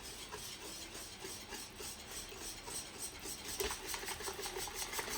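Pancake batter being stirred in a bowl, a utensil scraping against the bowl in quick, even, repeated strokes.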